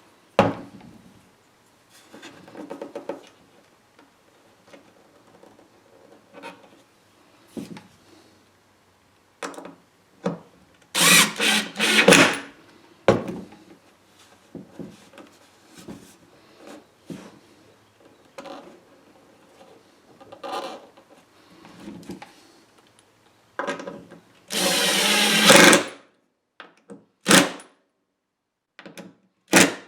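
Power drill/driver running in short bursts, driving small screws to fasten a strap to a wooden box: two quick runs about a third of the way in and one longer run near the end. Knocks and clicks of the box and hardware being handled come in between.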